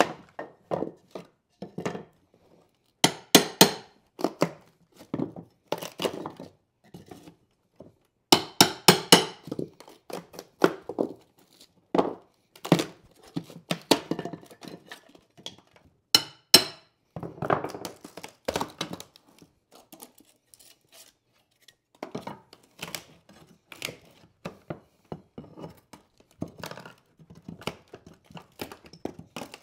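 Hammer knocking a pry bar under old pine floorboards and the boards cracking and clattering as they are levered up: a long string of sharp knocks and cracks in bursts, with short pauses.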